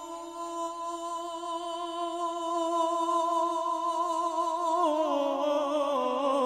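A singer holds one long wordless note of a devotional salaam to Husain, with a slight waver, then the melody steps down in pitch about five seconds in.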